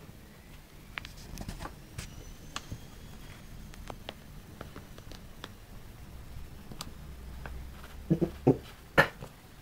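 Scattered soft crackles and taps of a catnip-filled fabric pillow being handled, rubbed and bitten by a cat, with a few louder knocks close together near the end.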